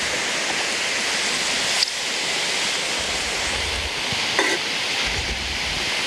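Steady hiss of heavy rain falling on the river and on a rain jacket, with low rumbles of wind on the microphone now and then and a couple of light knocks.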